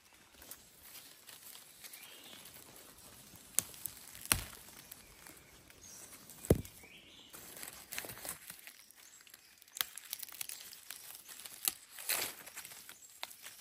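Rustling of dry leaves and brush as someone moves through forest undergrowth and handles plant stems. Scattered sharp snaps and cracks break in, about six of them, the loudest a little past halfway.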